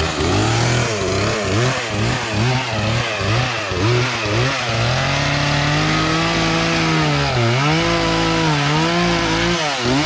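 Gas chainsaw cutting tree limbs. The engine pitch rises and dips about twice a second as the chain bites into the wood, then holds at high revs with a couple of brief dips, and falls off as the throttle is released near the end.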